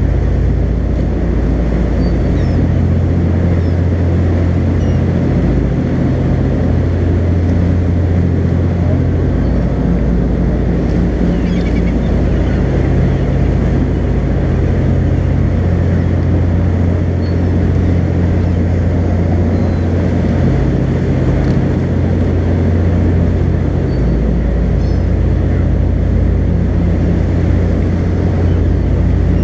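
Charter fishing boat's engine running steadily under way, a loud, even low drone mixed with the rush of wind and water past the hull.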